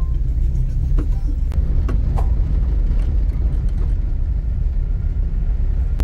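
Steady low rumble of a vehicle driving over an unpaved road, heard from inside the cabin, with a few faint knocks and rattles in the first couple of seconds.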